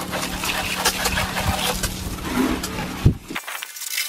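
Garden hose spray nozzle spraying water onto a snowmobile's body panels, suspension and track: a steady hiss and splatter over a low hum. A single thump a little after three seconds, after which the sound abruptly thins out.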